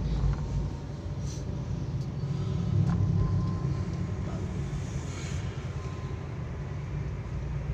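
Steady low rumble of a taxi's engine and road noise heard inside the car's cabin, with a few light clicks.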